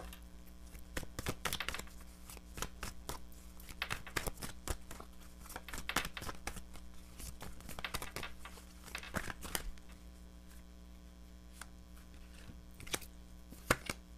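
A tarot deck being shuffled and handled by hand: a run of quick card rustles and taps that thins out after about ten seconds, with a few more near the end. A steady low electrical hum runs underneath.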